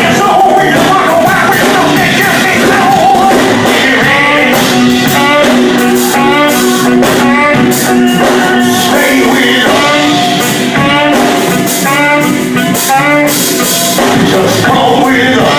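Blues-rock band music with guitar, loud and steady, with short bending notes repeating over a sustained low note.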